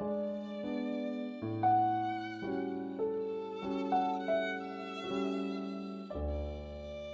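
Background instrumental music: sustained notes and chords that change about once a second, with a deep bass note coming in near the end.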